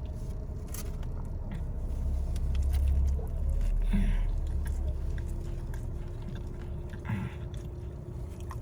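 A person chewing and biting into a meatball sub, with small wet clicks of the mouth, over a low steady rumble.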